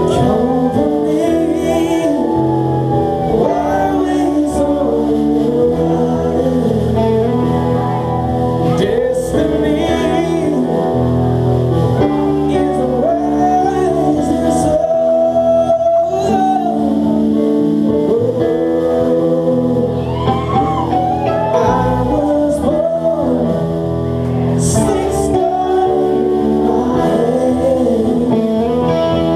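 Live rock band playing a song with a singer over electric guitar and the rest of the band, heard loud from the side of the stage in a club.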